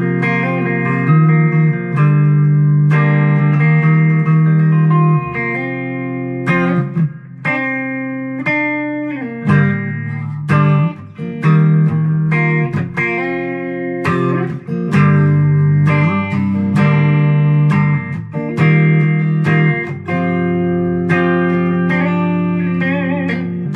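ESP LTD EC-256 electric guitar being played: a run of picked notes and chords, with a wavering, bent note near the end.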